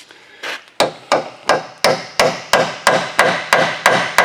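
A hammer beating steadily on a 9/16 steel socket fitted over a bolt, about three sharp, ringing metal strikes a second.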